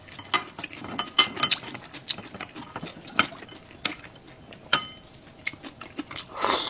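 Eating utensils clicking and clinking against dishes in an irregular series of sharp taps, a couple of which ring briefly like ceramic or metal.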